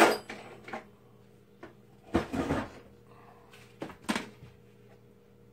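Kitchen utensils knocking and clattering in a drawer as it is searched for a spatula: a sharp knock at the start, a short cluster about two seconds in, and two more knocks near four seconds, quiet in between.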